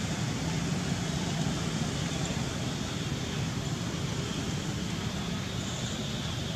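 Steady outdoor background noise, mostly a low rumble with a faint high, even hiss over it, and no distinct event.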